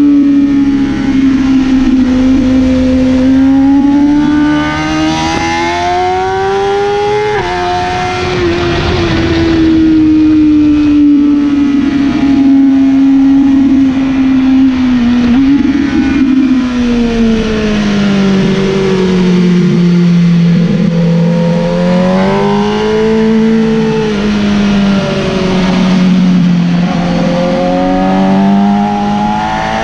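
2013 BMW S1000RR's inline-four sportbike engine heard from the bike itself at speed, its revs rising and falling through the corners, with a gear change about seven seconds in. Wind rushes past the microphone the whole time.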